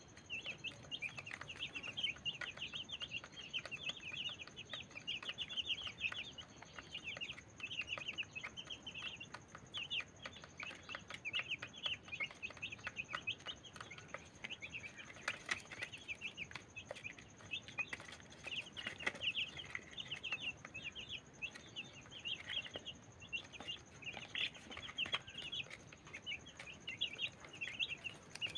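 A group of young chicks peeping continually in short, high chirps while they feed, with light clicks of beaks pecking at the grain and the plastic feeder tray.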